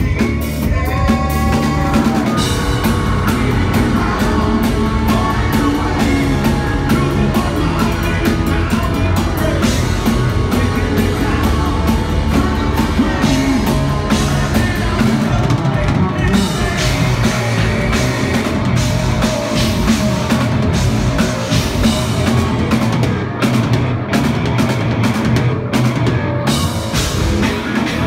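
Progressive metal band playing live and loud: full drum kit, bass, guitars and keyboards, with a male lead singer singing over them.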